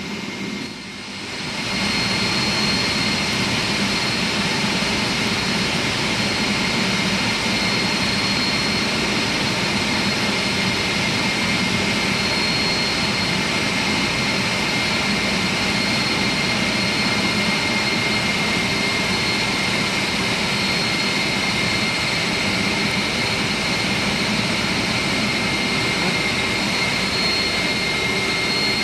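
Heavy industrial machinery running: a steady, loud roar with a constant high whine, dipping briefly about a second in and then holding level.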